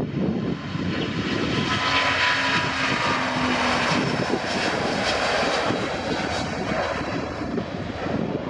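Airbus A350-900's two Rolls-Royce Trent XWB turbofans running at takeoff thrust during the takeoff roll: loud, steady jet noise, with a faint whine in the first few seconds.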